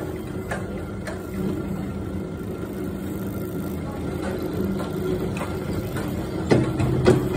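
Chairlift station machinery running: a steady low mechanical hum from the cable and return wheel, with scattered clicks as the chairs and cable pass over the pulleys. A couple of louder clunks come near the end.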